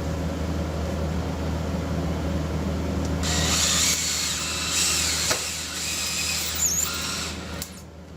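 Power drill running with a 1/8-inch bit. The bit cuts through the plexiglass sheet into the PVC frame from about three seconds in, adding a harsh, rasping noise over the motor hum, and the drill stops shortly before the end.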